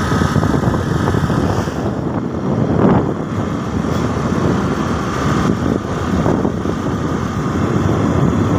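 Wind rushing and buffeting over the microphone on a moving motor scooter, with the scooter's engine running underneath.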